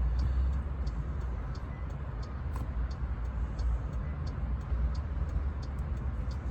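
Hazard-light flasher ticking steadily, about two ticks a second, over a steady low rumble.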